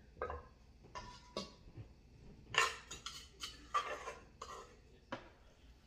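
Wooden pestle and spoons knocking and clinking against a clay mortar as papaya salad is mixed and seasoned: about a dozen short, irregular knocks and clinks, the loudest about two and a half seconds in.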